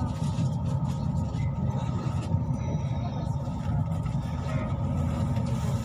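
Steady low rumble of a vehicle in motion, with a faint constant hum above it.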